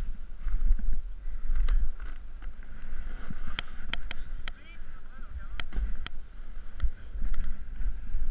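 Wind buffeting an action camera's microphone, a gusting low rumble, with about a dozen irregular sharp clicks as a snowboarder shifts his board in deep snow.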